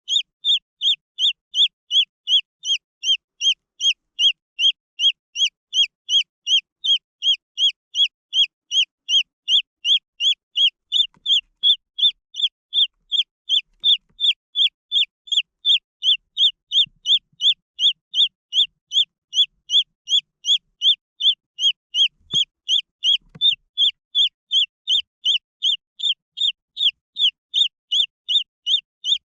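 Green junglefowl chick peeping steadily: short, high peeps, each falling slightly in pitch, about two and a half a second.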